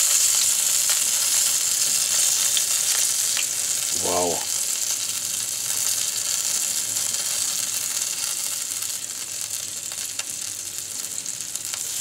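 Whole chicken sizzling on a gas grill's rotisserie as it is basted with an oil, rub and cornmeal paste: a steady high sizzle that slowly grows fainter. A short hummed voice sound about four seconds in.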